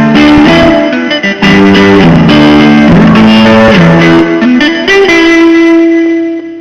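Blues guitar playing a run of notes, ending on one long held note.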